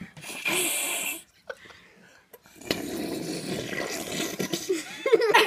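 Jell-O slurped through wide bubble tea straws. A short hissing suck comes about half a second in, then a longer rough, rattling slurp runs from about halfway to near the end. A voice comes in briefly at the very end.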